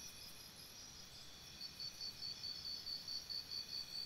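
Faint, high-pitched insect chirping: a steady thin trill, joined about a second and a half in by a pulsing chirp at about three pulses a second.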